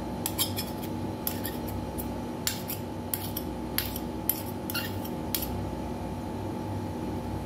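Metal spoon clinking and scraping against a plastic tub while stirring macaroni salad, in irregular sharp clicks that stop about five seconds in.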